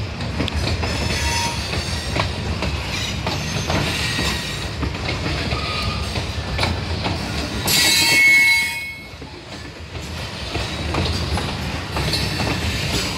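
Loaded CSX freight train of covered hopper cars rolling past close by, the wheels rumbling steadily and clicking over the rail joints. About eight seconds in, a loud high metallic squeal comes from the wheels and lasts about a second.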